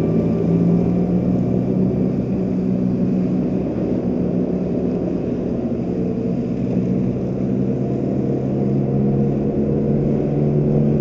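Motorcycle engine running steadily while riding, with a steady rush of road noise under it.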